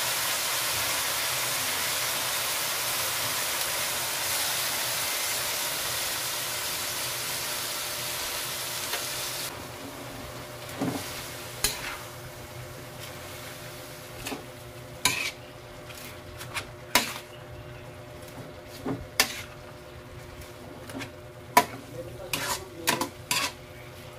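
Bean sprouts and carrots sizzling in a hot wok, a steady hiss that drops away suddenly about ten seconds in. Then a metal spatula stirs the vegetables, clinking and scraping against the wok in a dozen or so sharp strikes.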